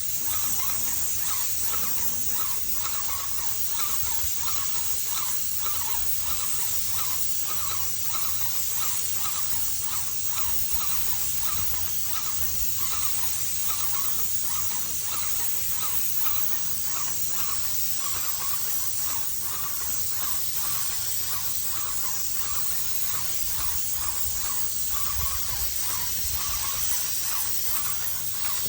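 Paint roller working over a garage door: a steady sticky hiss with a faint squeak repeating about twice a second.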